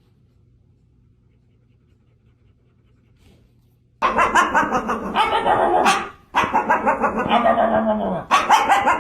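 Near silence, then about four seconds in a dog starts barking loudly in a dense run, with a short break about two seconds later.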